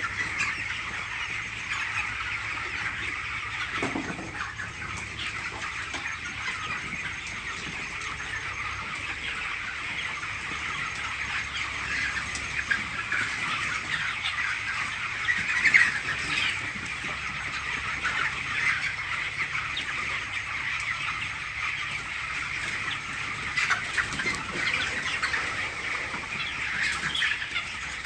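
A large flock of chickens in a poultry shed clucking and chirping as a dense, continuous chatter, with one louder squawk about sixteen seconds in. A faint low steady hum runs underneath.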